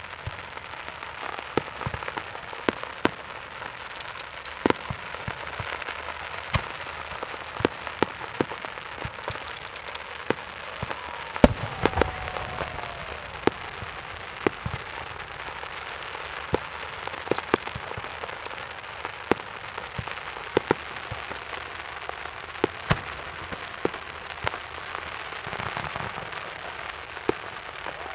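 Fireworks display: a steady crackle and a stream of sharp pops from bursting shells, with one much louder bang about eleven seconds in.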